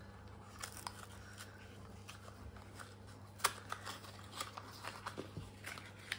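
Faint handling sounds as a small box and its packaging are opened by hand: scattered small clicks and rustles, the sharpest click about three and a half seconds in.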